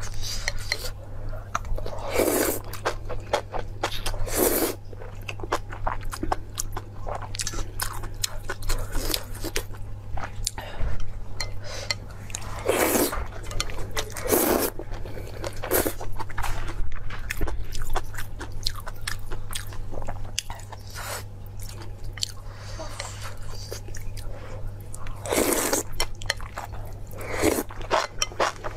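Close-up eating sounds: noodles slurped in several short noisy bursts, with steady chewing and biting made up of many small clicks and crunches between them.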